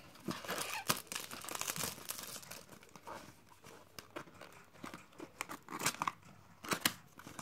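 Small cardboard toy box being torn and pried open by hand: irregular crackles, taps and crinkling of packaging.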